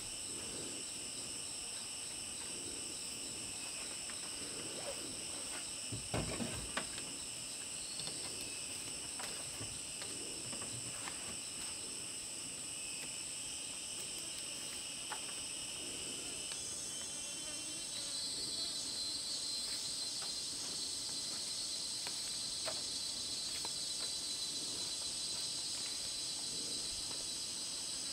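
Steady chorus of insects buzzing at several high pitches; a little past halfway another insect joins with a pulsing buzz and the sound grows slightly louder. A few soft knocks sound about six seconds in.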